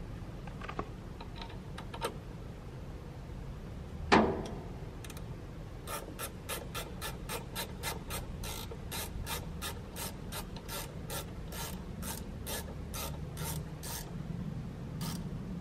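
A sharp metal clank with a brief ring about four seconds in, then a run of even, quick metallic clicks, about three a second, as the bar and chain on a Rotobec grapple saw head are worked by hand.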